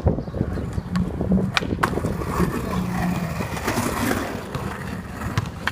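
Skateboard with urethane wheels rolling over a hard court surface, a steady low rumble, with a few sharp clacks in the first two seconds.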